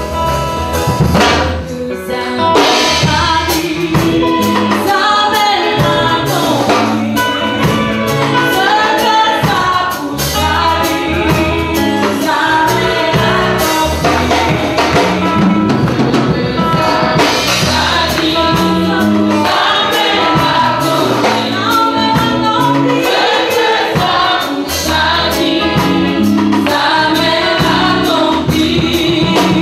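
Gospel choir singing into microphones through a PA, a woman leading on a handheld microphone, over a steady percussion beat.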